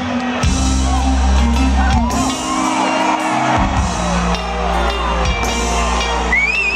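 Live soul band playing a slow song with long held bass and keyboard notes, while the crowd whoops and shouts. Near the end a high, wavering vocal cry rises over the music.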